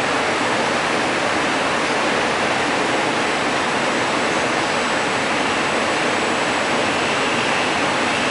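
Loud, steady rushing hiss like static or a white-noise effect, with no beat or tune, from the dance performance's sound track.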